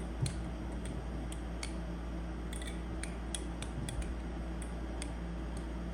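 Balisong (butterfly knife) being flipped: irregular sharp metallic clicks, about two or three a second, as the handles and blade swing and knock together, heard through a phone's microphone over a steady low hum.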